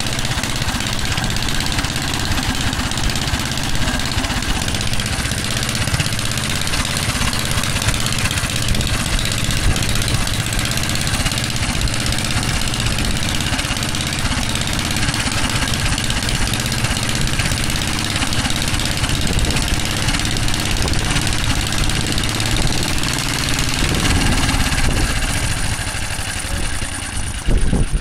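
Antique Flying Merkel motorcycle engine running steadily at idle, its firing pulses continuous, with a slight change in pitch near the end.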